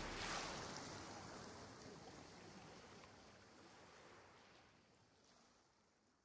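Soft rushing wash of noise, with a brief brighter swell about a third of a second in, fading steadily down to silence.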